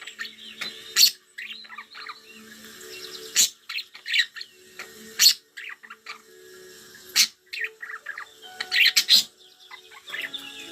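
Pet budgerigars chirping and chattering, with frequent sharp, short calls.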